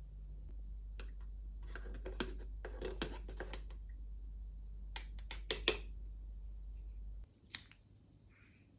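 Soft clicks and rustling in two short clusters, then a single sharp click near the end.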